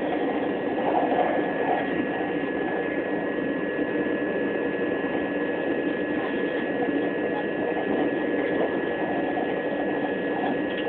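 Interior running noise of a Class 375 Electrostar electric multiple unit under way: a steady rumble with a constant high whine.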